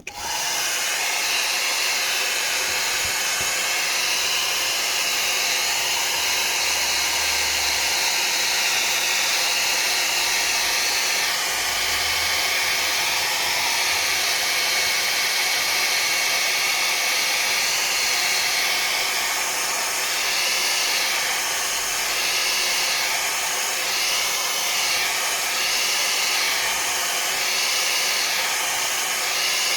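Hair dryer switching on right at the start and running steadily, a constant rush of air, blowing heat onto a phone's back cover to heat it for removal; a faint whine in it wavers up and down in the second half.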